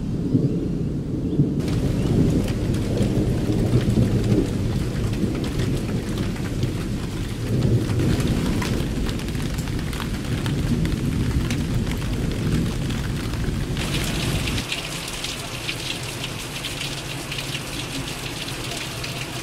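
Thunderstorm with heavy rain hissing over a deep, continuous rumble. About fourteen seconds in, the rumble stops and close raindrops patter sharply on a hard surface.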